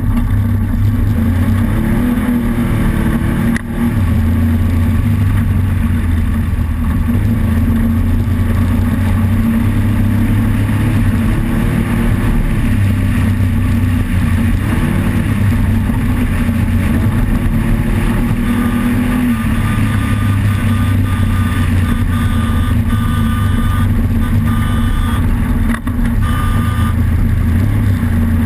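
Off-road race car engine running hard, a loud, continuous drone whose pitch rises and falls slightly with small changes in throttle, over steady noise.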